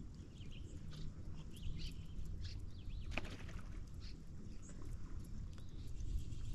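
Open-water ambience on a lake: a steady low rumble of wind and water around the boat, with faint, scattered bird chirps.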